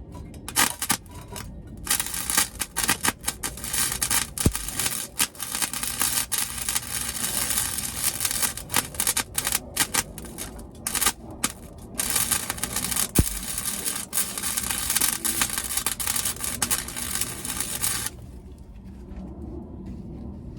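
Welding arc crackling on thin sheet-steel floor pan, in stop-start runs with short breaks between welds; it stops near the end, leaving a low steady hum.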